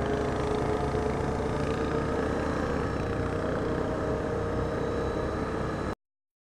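ATV engine running steadily while riding a gravel trail. It cuts off abruptly near the end.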